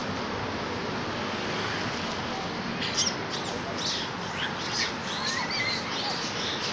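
Small birds chirping in short, quick calls that start about three seconds in, over a steady background hiss.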